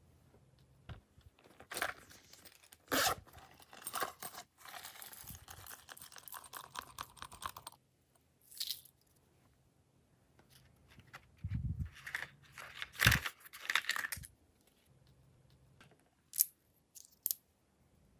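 Small plastic slime charms and sequins being handled and scattered onto slime, giving two bursts of crinkling, crackling noise with a few soft thumps, then three sharp clicks near the end.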